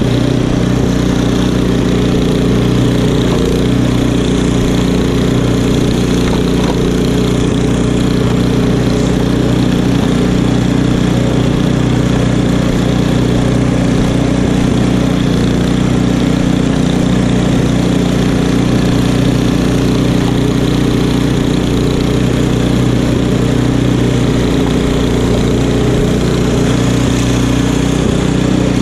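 Craftsman two-stage tracked snowblower's engine running steadily under load while it augers and throws deep snow.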